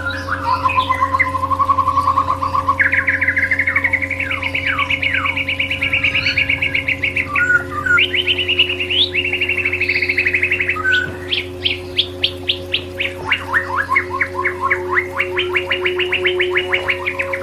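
White-rumped shama (murai batu) singing: a long string of fast trills and rapid runs of repeated chirps, over a steady low hum with a few held tones underneath.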